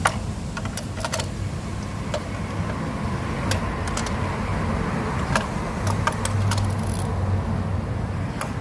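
Light metallic clicks and clinks of hand tools at work, scattered irregularly, over a steady low rumble.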